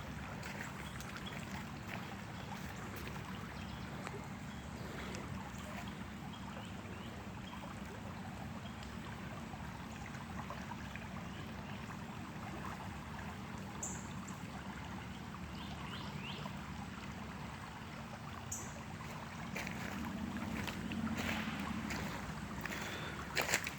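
Steady outdoor background noise, with a few short high chirps and some clicks near the end.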